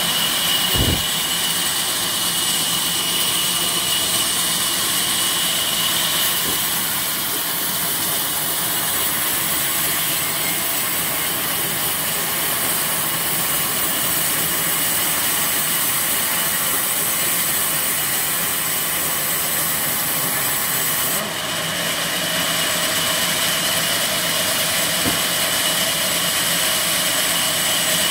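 Band saw mill running steadily, its blade slicing a rain tree log into planks, with a steady high whine over the machine noise. A single knock about a second in, and a brief dip and change in tone near the end as the cut shifts.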